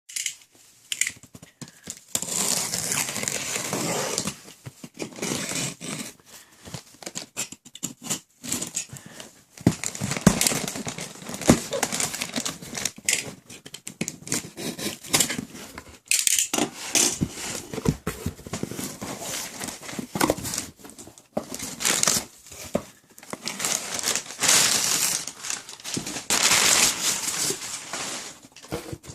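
Packaging being unwrapped and handled: plastic and paper crinkling and tearing in irregular bursts, with scattered clicks and knocks.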